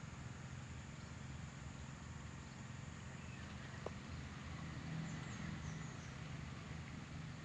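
Outdoor ambience: a steady low rumble, with a few faint, high bird chirps about five seconds in and a single small click near four seconds.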